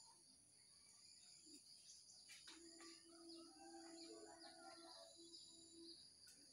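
Faint outdoor ambience: a steady high-pitched insect buzz with a few short bird chirps, and a low steady hum for about three seconds in the middle.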